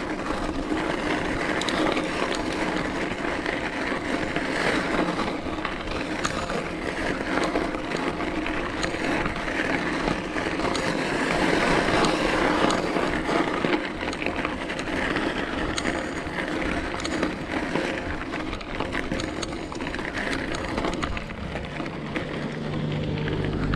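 Bicycle riding heard from a chest-mounted camera: steady rolling noise with many small rattles and clicks.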